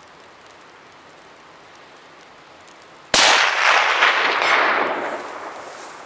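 A single rifle shot from a Remington 700 bolt-action rifle in .308 Winchester, about three seconds in: a sharp crack followed by a long echo dying away over about two seconds. Before the shot there is only a steady low hiss.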